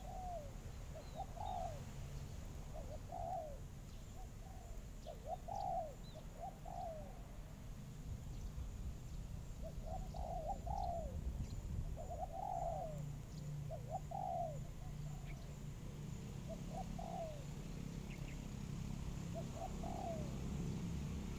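Doves cooing, most likely spotted doves: short coos that rise and then fall, repeated every second or two in loose runs, over a steady low rumble.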